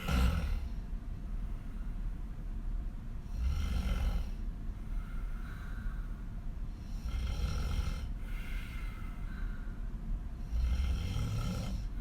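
A woman snoring hard with her mouth open while lying on her back: four loud snores on the in-breath, about three and a half seconds apart, each followed by a softer breath out.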